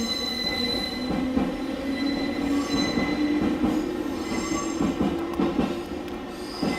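JNR 189 series electric train running, heard from inside the car: a low hum that rises slightly in pitch over the first couple of seconds and then holds, under a steady high-pitched whine, with scattered short clicks from the track.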